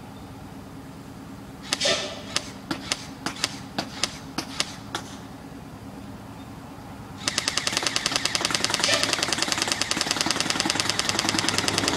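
AfterMath Kirinex M4-style airsoft rifle firing at a plywood target: about ten single semi-automatic shots, then, about seven seconds in, a long full-auto burst of rapid shots.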